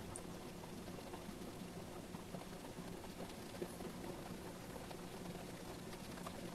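Faint steady hiss with a low steady hum and a few tiny ticks.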